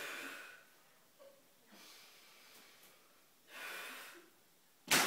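Someone blowing hard into a rubber glove to inflate it: puffs of breath at intervals of a second or two. Near the end a sharp, sudden crack, the loudest sound, with a smaller one just after.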